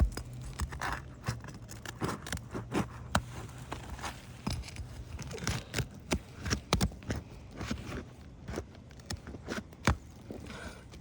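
Asphalt shingles being lifted with a roofing snake in a repair test: irregular scraping, crackling and sharp snaps as the seal strips break and granules pop off the shingles.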